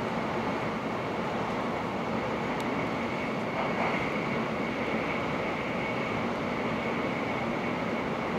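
Running noise inside a Hokuriku Shinkansen carriage at speed: a steady rumble and rush with a faint high whine held on one note. The noise swells briefly a little under four seconds in.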